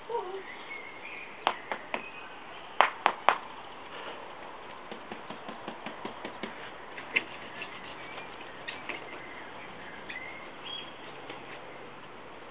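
Scattered sharp clicks and taps, the loudest a quick run of three about three seconds in, as a chocolate Labrador puppy's claws click on patio paving slabs. Faint bird chirps now and then.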